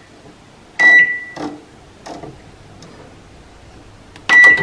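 Microwave oven control panel beeping twice, short loud single-pitched beeps about a second in and near the end, as its settings are entered and the start button is pressed. A few soft clicks come in between.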